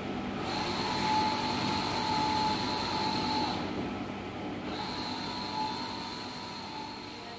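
Wide-format banner printer running: a high motor whine sweeps for about three seconds, stops for about a second, then comes back, in repeating passes over a steady fan and machine noise. The sound grows fainter near the end.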